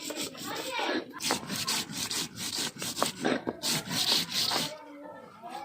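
Repeated rough rubbing and scraping strokes from hand work in food preparation. They stop suddenly about a second before the end.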